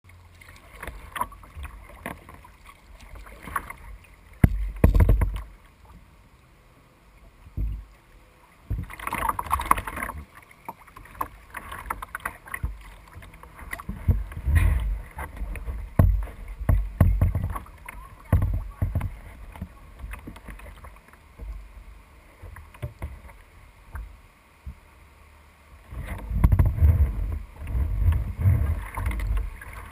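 Kayak being paddled down a shallow creek, heard from a camera on the bow deck: water splashing and swishing against the hull, with irregular low knocks and rumbles. A louder splash comes about a third of the way in.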